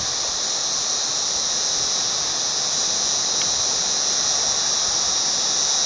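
A flooded river rushing steadily over rapids, with a steady high-pitched insect drone over the water noise.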